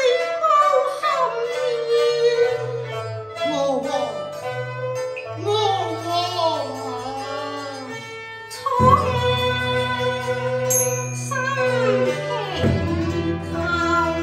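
Cantonese opera music: a melody that slides and wavers in pitch over steady low accompaniment, with a sudden struck accent about nine seconds in and another near twelve and a half.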